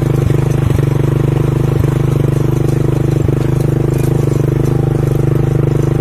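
A vehicle engine running steadily at an even speed, heard from on board as it travels, a low pulsing hum with a few light knocks in the first half.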